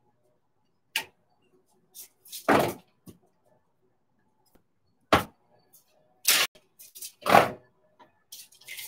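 Tai chi fan being snapped open and shut several times: a string of sharp snaps and short swishes, a second or so apart.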